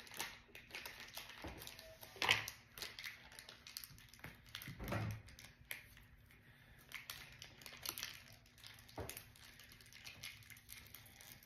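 Faint handling noise of small plastic toys and wrappers on a tabletop: light crinkling with scattered clicks and soft knocks, a little louder about two and five seconds in.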